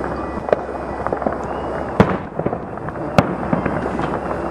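Fireworks going off: sharp bangs about half a second in, at about two seconds and just after three seconds, the last two the loudest, followed by a run of smaller crackles near the end.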